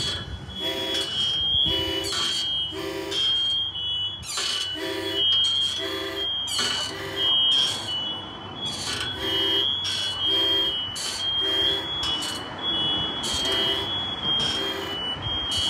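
Two alarms sounding at once. A smoke/fire alarm gives a high-pitched shrill tone with brief breaks, and over it an F59PHI locomotive's cab alarm sounds a lower, harmonica-like chord in short repeated blasts that come in groups.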